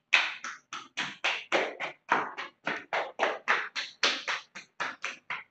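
Hands patting lightly along a bare lower leg in a self-massage tapping routine, a quick, even run of slaps, about four a second.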